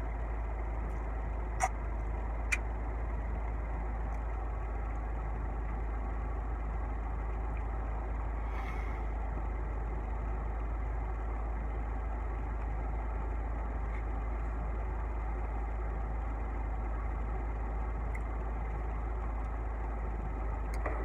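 Steady low hum of an idling car engine heard from inside the cabin, with two sharp clicks about two seconds in.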